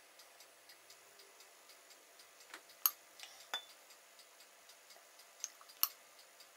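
A few faint glass clicks, about five, from a small glass honey jar tapping the rim of a larger glass jar as honey is poured from one into the other; the loudest come about three seconds in and near the end.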